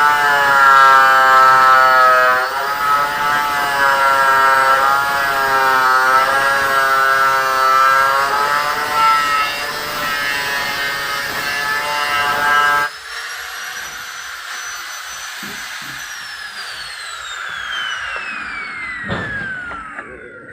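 A power tool running, its pitch wavering as it is worked, for about thirteen seconds. Then it changes suddenly to a quieter, steady high whine that falls in pitch over the last few seconds as the tool spins down.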